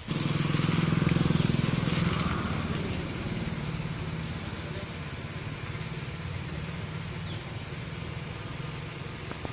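A motorcycle engine passing close, loudest in the first two seconds and then easing off, over a steady engine hum and the hiss of a high-pressure water spray jet.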